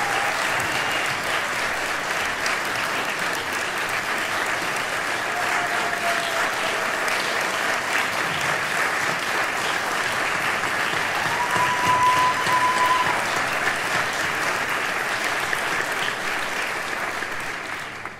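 Audience applauding steadily, with a few short calls rising above the clapping. The applause fades out near the end.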